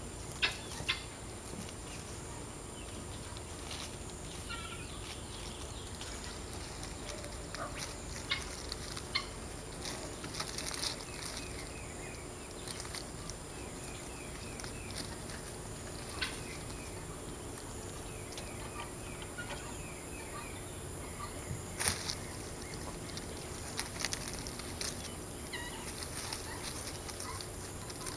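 Kittens scrambling on an asphalt-shingle roof and in the leafy branches above it: scattered scratches, taps and leaf rustles, the sharpest about a second in and about 22 seconds in. Faint rapid bird trills are heard in the background.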